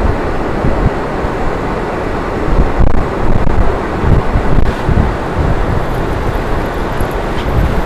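Loud wind buffeting on the microphone: a rough rushing noise that gusts up and down, heaviest in the low end, with no steady motor tone.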